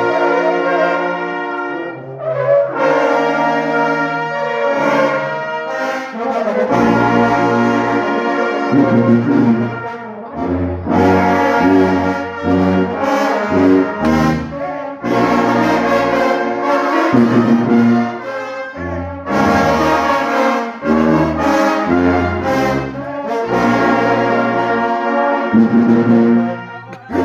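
Brass band music: held chords with low brass prominent, changing every second or two.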